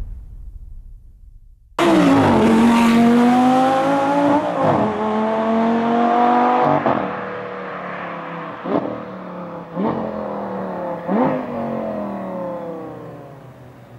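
Audi R8 V10 with a mariani sport exhaust accelerating hard, starting abruptly about two seconds in. The revs climb and drop at each of several upshifts, with sharp cracks at the later shifts, and the engine grows fainter as the car pulls away.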